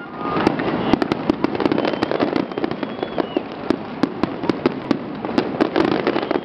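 Large fireworks display: rapid, overlapping bangs over continuous crackling, with a few faint high whistles.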